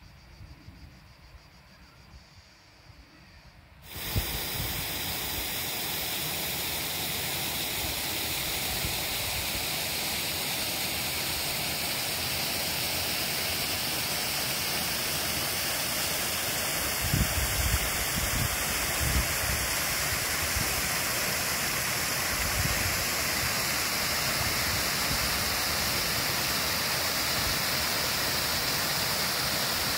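Loud, steady rushing water that starts abruptly about four seconds in, after a quiet stretch. A few low bumps come just past halfway.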